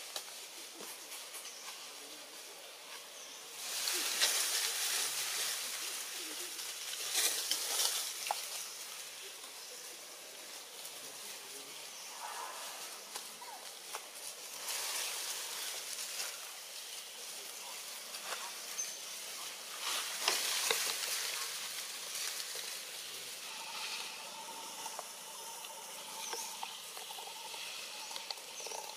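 Leaves and branches rustling in several short bursts over a steady outdoor hiss.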